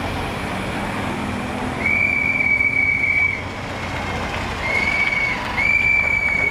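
A whistle blown in three long, steady high blasts, the last running on past the end, over the low rumble of convoy vehicles driving slowly past.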